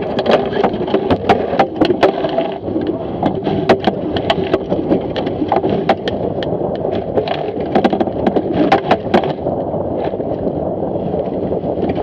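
Water rushing past a Fireball sailing dinghy's hull, with wind noise, as the boat tacks. Many sharp knocks and clicks from the hull, gear and crew sound over it, densest in the first few seconds and again about eight seconds in.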